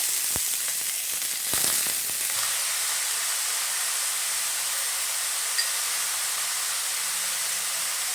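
Cabbage frying in hot oil in a kadhai: a steady sizzle, with a few knocks in the first two seconds, like a spatula against the pan.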